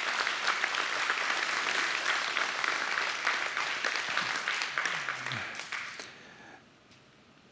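Congregation applauding, a dense patter of many hands clapping that dies away about six seconds in.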